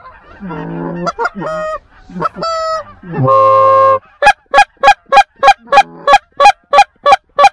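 Canada goose honks and clucks, loud and close: assorted calls and one long held note, then an even run of about a dozen sharp clucks, roughly three a second.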